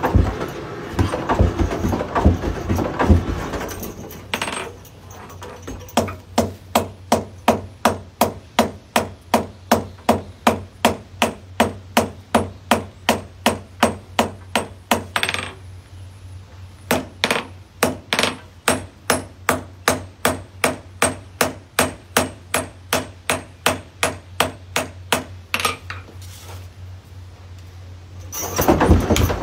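Blacksmith's hand hammer striking hot iron on an anvil in a steady rhythm of about two to three blows a second, with a short pause about halfway through. The strikes come after a few seconds of noisy clatter.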